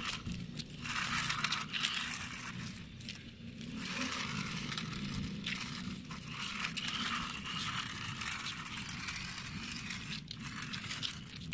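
Remote-control toy sports car driving over gritty concrete: a crunching, scraping rattle of its plastic wheels on the grit that comes and goes in stretches of a second or two.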